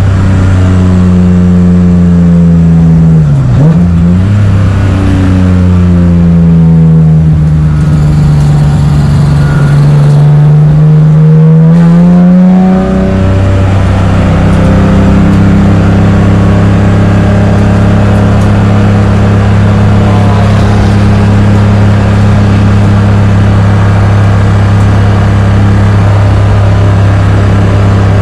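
BMW E36 race car's engine heard from on board in the cockpit. The engine note dips sharply about three seconds in, sags and climbs again over the next several seconds, then drops near the middle and holds one steady pitch to the end.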